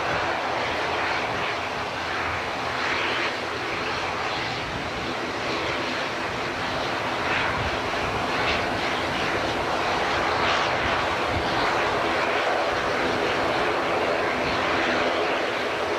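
Airbus A320 jet engines at takeoff power, a steady, even engine noise that holds its level throughout.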